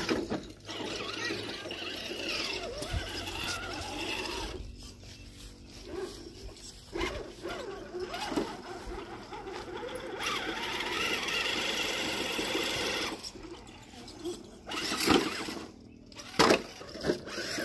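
Electric motor and gears of an RC rock-crawler truck whining in spells as it is driven over rocks. A few sharp knocks and clatters, most of them near the end.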